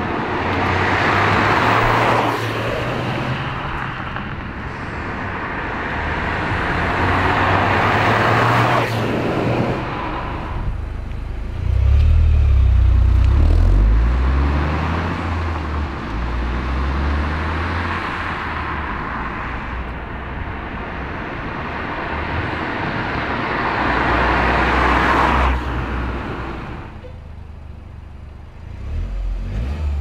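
Toyota GR Yaris on its stock resonated exhaust with the standard particulate filter, its turbocharged three-cylinder engine pulling hard past and away in several passes. The engine note swells and rises through the gears, then falls away, and it is quieter near the end.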